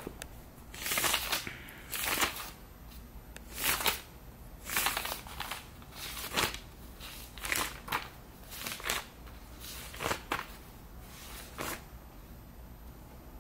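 Paper rustling: about a dozen short rustles at irregular intervals, as pages are turned.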